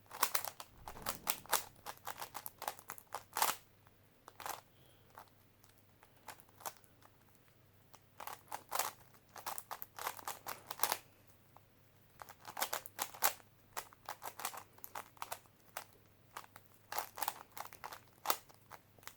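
GAN speedcube (Rubik's cube) being turned fast during a timed solve: quick runs of plastic clicking and clacking as the layers snap round, with short pauses between the runs.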